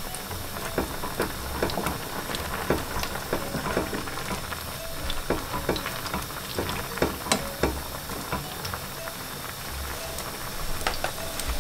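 Pot of sliced peppers, onion and carrot in vinegar and water at a rolling boil, a steady bubbling hiss with many small pops throughout, as a wooden spoon stirs through the vegetables.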